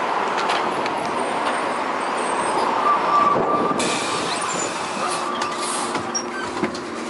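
City bus pulling in to the stop amid street traffic, its engine and road noise steady, with a short hiss of compressed air about six seconds in.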